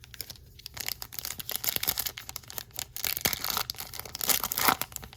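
Foil trading-card pack wrapper being torn and crinkled in the hands: a dense run of crackles and rustling, loudest near the end.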